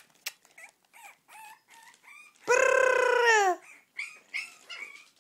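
Young puppies squeaking and whimpering, with one loud, drawn-out puppy cry about two and a half seconds in that lasts about a second and drops in pitch at the end.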